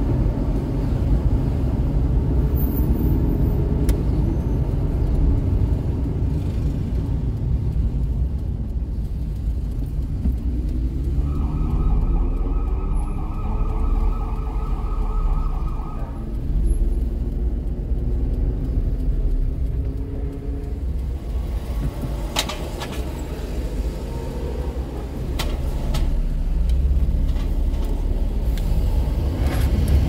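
Steady low engine and tyre rumble of a car driving in slow traffic, heard from inside the cabin. A siren sounds for about five seconds near the middle, and a few light knocks come near the end.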